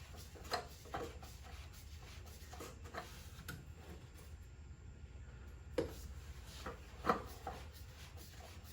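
Plastic PCV valve being threaded in by hand: light rubbing with a few small clicks and taps, over a low steady hum.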